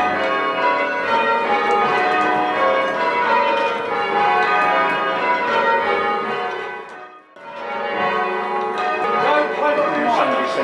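Church tower bells rung full circle by a band in a steady sequence, each bell struck in turn so the strokes overlap in a continuous peal of change ringing. The sound dips away briefly about seven seconds in, then the ringing resumes.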